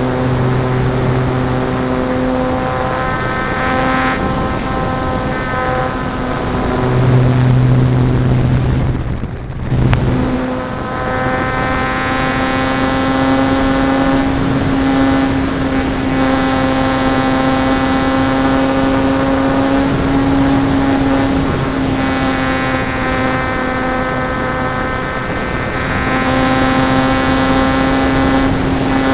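Electric motor and propeller of a ParkZone Stinson Reliant RC plane running steadily in flight, heard through an onboard camera, with wind rushing over the airframe. The sound dips briefly about nine seconds in, then picks back up.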